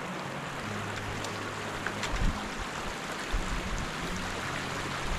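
Small rocky mountain creek running over stones, a steady rush of water, with a couple of brief low thumps about two and three and a half seconds in.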